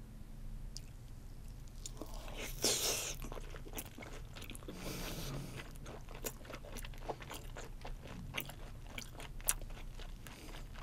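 Close-miked chewing of a whole mouthful of raw olive flounder (gwang-eo) sashimi. A louder noisy burst comes about two and a half seconds in, then a run of short clicking chews at a few per second.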